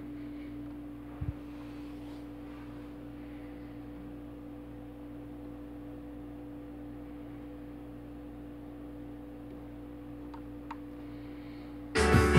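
Kenwood KD-3070 direct-drive turntable going through an automatic play cycle: a steady hum, a low thump about a second in, and two faint clicks near the end as the tonearm cues down onto the record. Then rock music from the record starts loudly in the last half second.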